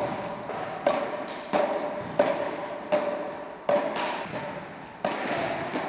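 Frescobol rally: wooden paddles hitting a rubber ball back and forth, about eight sharp knocks at uneven intervals of well under a second. Each knock rings and echoes in a large sports hall.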